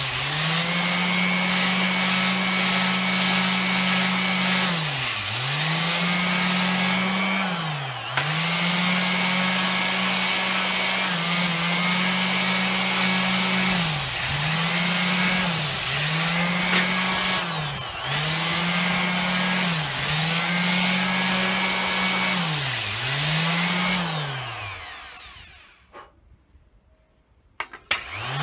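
Electric orbital sheet sander running on an oak board, its motor hum dropping briefly in pitch and recovering again about ten times. About 24 seconds in it is switched off and winds down, then starts up again at the very end.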